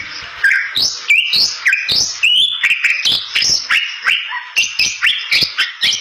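Bali myna singing vigorously: a fast run of loud whistles and sharp chirps, several notes a second, many sweeping up or down in pitch, with harsh clicks between them.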